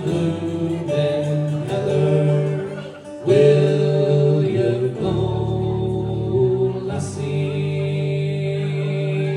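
Folk group singing with guitar and bass accompaniment, voices holding long notes through the closing lines of the song.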